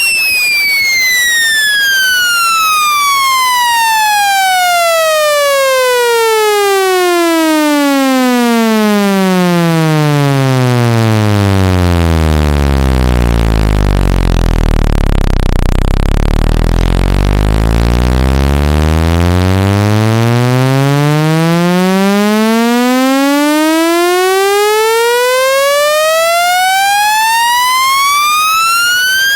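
Electronic speaker-cleaning sweep tone, buzzy with overtones, gliding steadily down in pitch to a deep bass hum, holding low for a few seconds, then gliding back up. The low tone is meant to shake dust or water out of a phone speaker.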